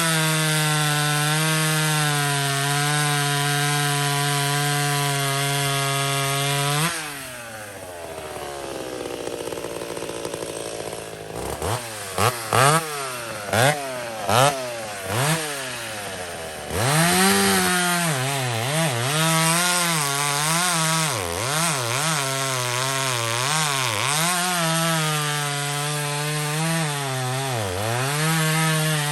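Two-stroke chainsaw at full throttle. About seven seconds in, its note falls away to idle. Several short throttle blips follow, then it goes back to full throttle cutting wood, the engine pitch dipping and recovering as the chain bites under load.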